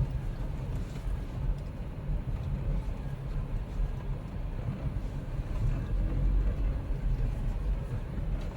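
Wind buffeting the microphone: an uneven low rumble that swells and fades in gusts.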